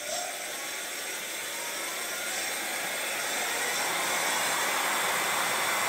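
72 V 1500 W ebike motor spinning the rear wheel freely off the ground under full throttle, accelerating from about 10 to over 40 mph. It makes a rising whine over a growing rush of the spinning tyre, getting steadily louder.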